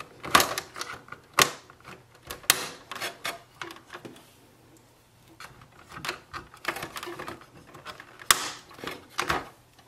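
Sharp plastic clicks and snaps as the blue ink-tank caps of an Epson EcoTank ET-2720 are pushed into place on the ink tank unit, with light handling between them. The clicks come irregularly, a few in the first three seconds, a quieter gap around the middle, then another cluster near the end.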